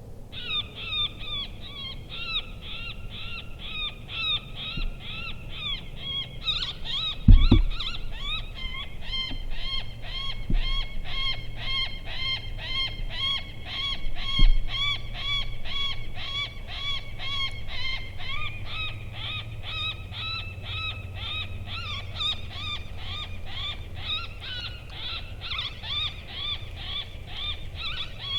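Predator call playing a prey distress sound: a long run of repeated high, pitched cries, about two to three a second, meant to lure in coyotes and bobcats. A sharp thump comes about seven seconds in.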